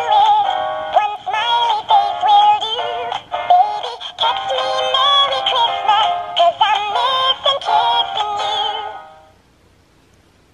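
Gemmy animated dancing Christmas squirrel toy playing its song: a high-pitched singing voice with music, stopping about nine seconds in.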